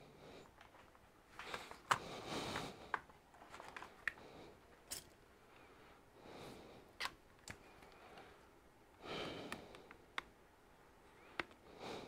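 Faint handling noise: scattered light clicks and taps with a few soft swishes as a tablet computer is picked up and turned over by gloved hands.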